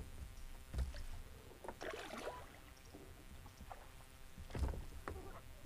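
Kayak being paddled with a double-bladed paddle: the blades dip and splash, and water trickles off them, with a couple of dull thumps, about a second in and again near the end.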